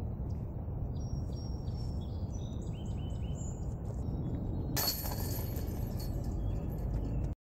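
Steady low wind rumble on the microphone with small birds singing short high notes. About five seconds in, a sudden harsh, bright noise cuts in and lingers, then the sound stops abruptly just before the end.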